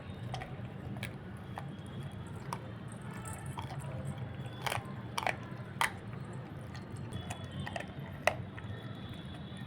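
Pitbull puppy chewing and biting raw meat: irregular wet snaps and crunches, a few sharper ones near the middle and one near the end, over a steady low hum.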